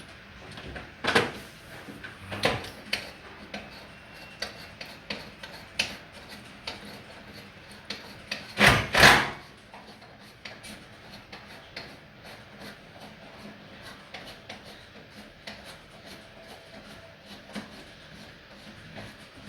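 Scattered clicks, knocks and scraping of tools and parts being handled while a washing machine part is unscrewed, with sharp knocks about one and two and a half seconds in and a louder scraping rattle about nine seconds in.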